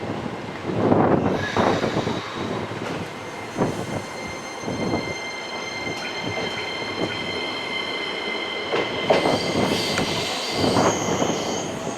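Keisei Line commuter train moving along the platform track, its wheels clacking and rumbling over the rails. From about a second and a half in, a steady high-pitched squeal of several tones runs over it and holds until near the end.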